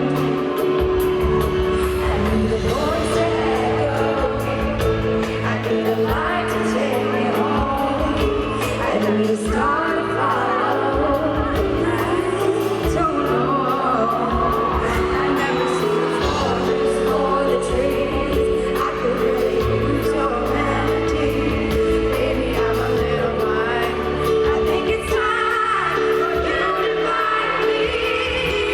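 A female pop singer performing a ballad live, her voice carried over steady band accompaniment, heard as a live concert recording.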